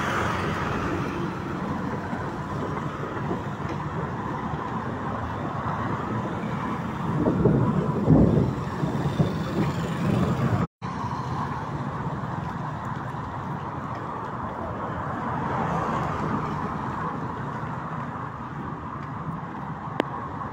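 Road traffic on a rain-wet street: a steady noisy wash of passing vehicles, with a louder low rumble of a vehicle about seven to nine seconds in. The sound cuts out for an instant about eleven seconds in.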